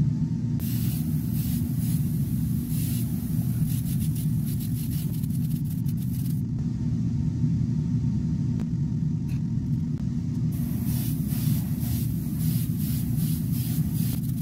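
Airbrush spraying paint in many short hissing bursts, in two spells with a pause of a few seconds between them, over a steady low hum.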